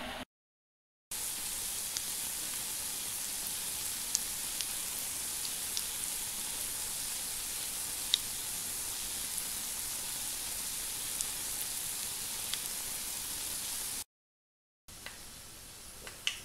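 Apple fritters sizzling in hot vegetable oil in a frying pan: a steady high hiss with scattered small pops and crackles. The sound cuts out briefly twice, and near the end a quieter stretch holds a couple of light clicks.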